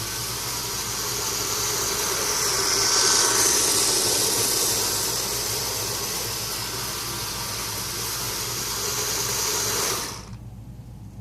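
PowerCity toy train set running, a steady whirring hiss of its motor and wheels that swells about three seconds in and cuts off abruptly about ten seconds in.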